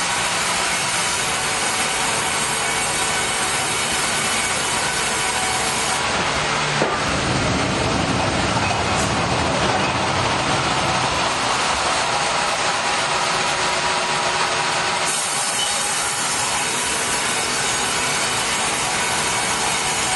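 Sawmill headrig saw cutting a log as the carriage runs, a loud continuous sawing noise that grows deeper for a stretch in the middle.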